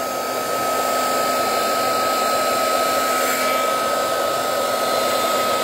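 Small handheld craft heat gun running steadily, blowing air onto wet alcohol ink on paper, with a constant high whine over the rush of air.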